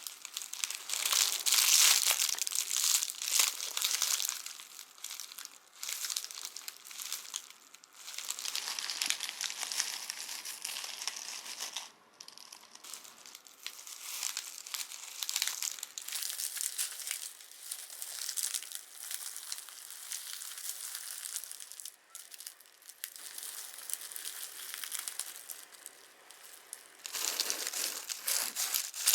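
Crisp panko crust of oven-baked curry bread crackling and crunching in irregular bursts as the bread is broken into, with short pauses between.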